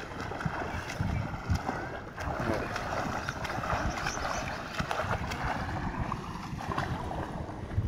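Water splashing from children swimming across a canal, many small irregular splashes, with wind rumbling on the microphone.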